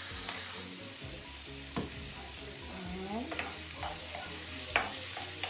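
Garlic, onion and tomato sizzling in a frying pan while a wooden spatula stirs them, with a few sharp knocks of the spatula against the pan, the loudest near the end.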